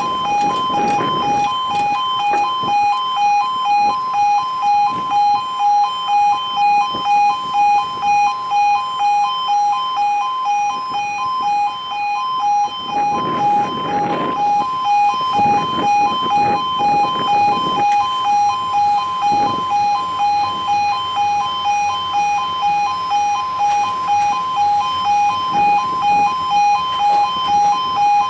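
Level crossing alarm sounding a steady two-tone warning, pulsing about twice a second, with a stretch of rumbling noise about halfway through.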